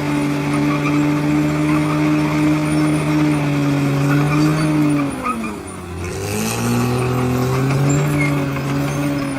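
Bulldozer's diesel engine running steadily. About five seconds in its pitch sags sharply for under a second, then picks back up, with a brief hiss as it recovers.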